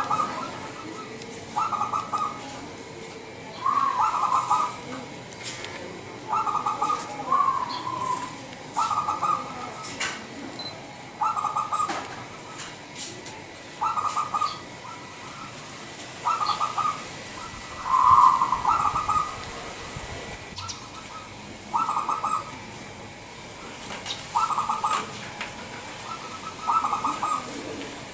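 Local Indonesian zebra dove (perkutut) singing: short cooing phrases repeated about every two seconds.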